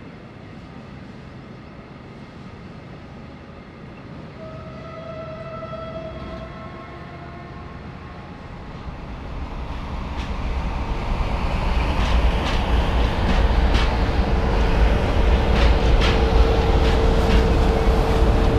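Diesel shunting locomotive sound building up: quiet at first, then a low engine rumble that grows louder about halfway through. A steady whine and a run of clicks like wheels over rail joints follow.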